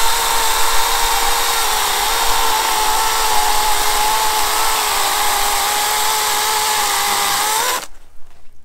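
Litheli 40-volt cordless electric chainsaw running with its chain in a log, a loud, steady motor whine over chain noise that wavers slightly in pitch. The motor stops suddenly near the end.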